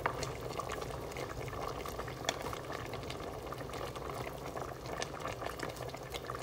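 Chicken broth with broccoli simmering in an aluminium pot: a steady bubbling with many small pops, while a wooden spoon stirs through it, with a couple of sharper clicks.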